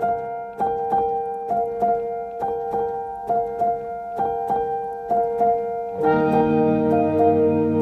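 Background music: a keyboard playing a repeating figure of notes at a steady beat. A fuller, lower layer joins about six seconds in.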